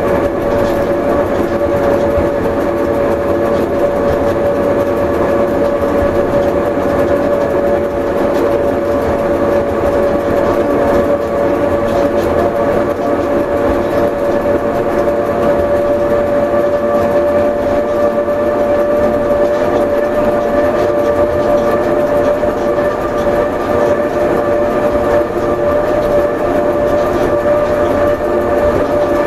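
Pilatus Railway electric rack railcar climbing, heard from inside its driver's cab: a steady whine with fainter higher overtones over a continuous rumble.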